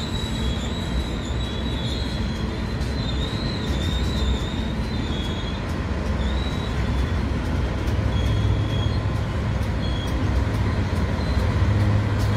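Loaded coal hopper wagons rolling past, their wheels squealing in a wavering high pitch, over a steady low rumble. From about two-thirds of the way in, the low engine hum of approaching diesel locomotives grows louder, with a few wheel clicks near the end.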